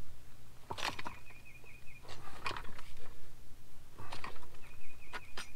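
Metal antenna tubing clinking and knocking as sections are handled, a few sharp clinks, several in close pairs. A faint, high chirping trill comes twice.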